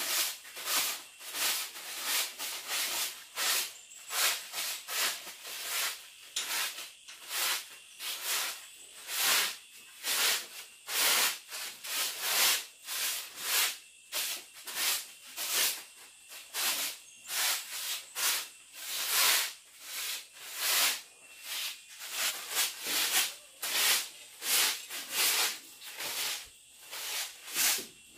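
Rasping rub strokes repeated steadily, about one or two a second.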